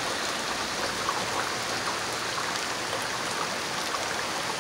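Heavy thunderstorm rain pouring down, a steady even hiss of falling water.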